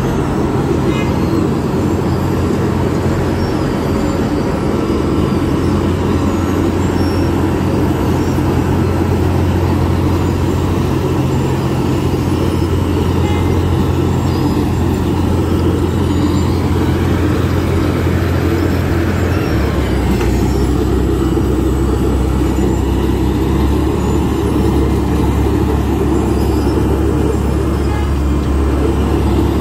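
Road milling machine (cold planer) running with a steady, loud low diesel drone, which steps down to a lower pitch about twenty seconds in.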